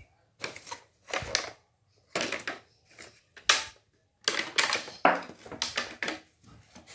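Clear plastic packaging being handled and crinkled: an irregular run of crackles and rustles.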